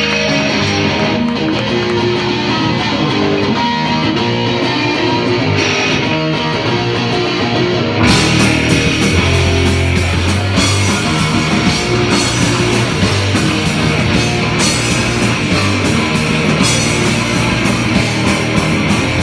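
Instrumental rock music with distorted electric guitar; about eight seconds in, the full band comes in with drums and bass.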